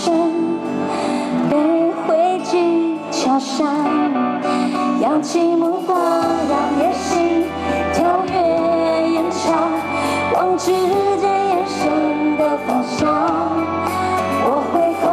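A woman singing a pop ballad live into a microphone over amplified backing music with guitar. A bass line comes in about six seconds in.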